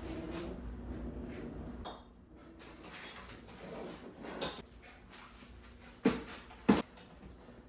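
Kitchen items and cupboard doors being handled while packing: scattered light clatter and clicks, with two sharp knocks about six seconds in, half a second apart. A low hum runs under the first two seconds, then stops.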